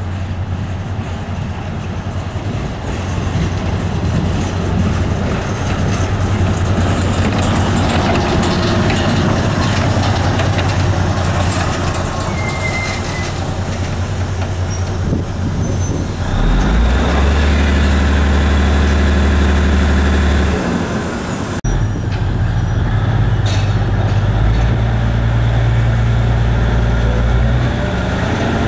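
Railway locomotive running, with a steady low hum. About sixteen seconds in a louder, deeper engine note sets in, and near the end a whine rises steadily in pitch.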